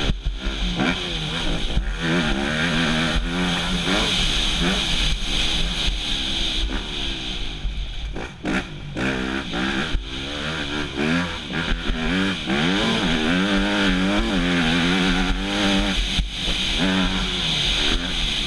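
Motocross bike engine, heard from on the bike, revving up and down over and over as it accelerates out of turns and backs off for jumps. A steady hiss runs under it, with a few sharp knocks along the way.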